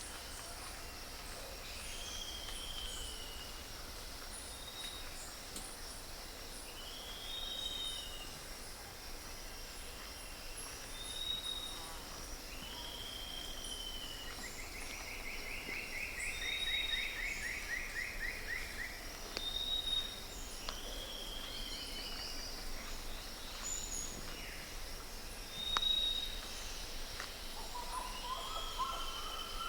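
Birds singing over a steady high insect drone. A short falling whistle repeats every two to three seconds, with brief high notes in between. A longer trill, falling slightly, runs for several seconds about halfway through.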